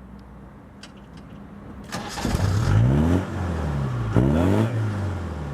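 Land Rover Discovery engine revved twice from idle, each rev climbing sharply in pitch and then falling back.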